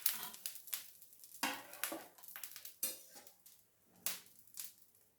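Spatula scraping and tapping on a griddle pan as a cooked roti is lifted off. It is a string of short scrapes and knocks that grows sparser and quieter toward the end.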